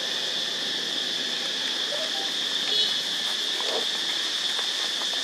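Steady, high-pitched drone of insects. A few faint short sounds come through behind it about halfway through.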